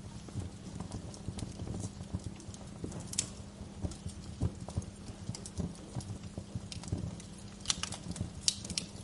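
Wood fire crackling in a fireplace: irregular pops and snaps over a steady low rumble, with a cluster of sharper pops near the end.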